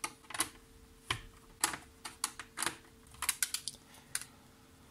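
A string of irregular small clicks and taps from a screwdriver, screws and a small circuit board knocking against the plastic front panel of a Tascam 424 MkII cassette multitrack recorder, as the board is unscrewed and lifted out.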